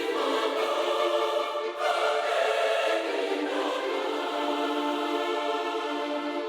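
Choir singing sustained chords doubled by an orchestral string section, in an epic choral piece in D minor. The chords change about two seconds in and again about three and a half seconds in. There is little deep bass under them.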